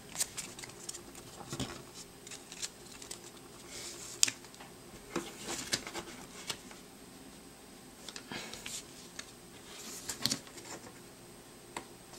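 Yu-Gi-Oh trading cards being handled and set down on a playmat: faint, scattered light clicks, taps and rustles at uneven intervals.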